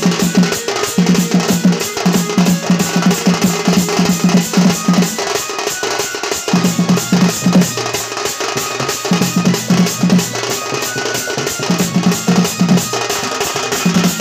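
Music driven by a fast, steady drum beat, with a low sustained tone that comes and goes in phrases, accompanying a Sambalpuri danda dance.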